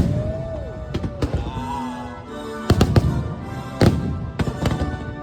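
Fireworks bursting in a string of sharp bangs, with a cluster at the start and more around three and four seconds in, over the show's music.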